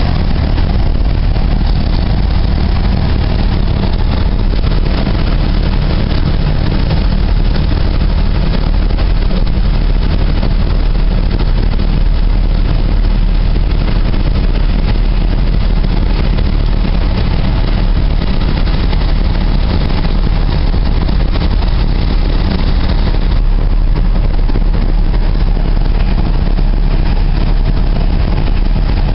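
A steady, loud engine drone with a deep low end, typical of a vehicle running.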